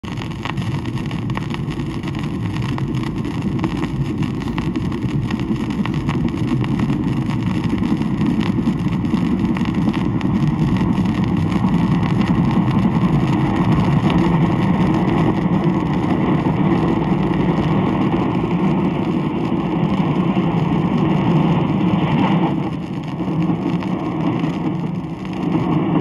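Recorded sound effect of a local train passing, played from a 78 rpm shellac record with surface noise crackling through it. The low rumble builds over the first half, dips briefly a few seconds before the end, then comes back up.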